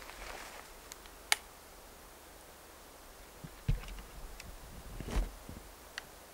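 Handling sounds from an M1849 Kammerlader black-powder rifle: a sharp metallic click about a second in, two dull knocks around the middle, and another short click near the end.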